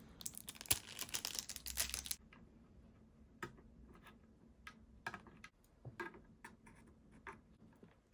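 Faint handling of an NVMe drive and its small plastic packaging: about two seconds of crinkly rustling and clicking, then scattered light clicks and taps.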